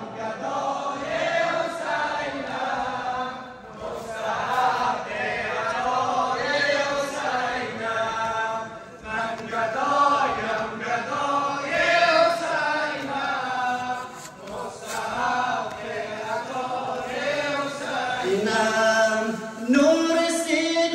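Men's voices chanting a noha, a Shia Muharram lament for Imam Husayn, in long rising and falling phrases with brief pauses between them.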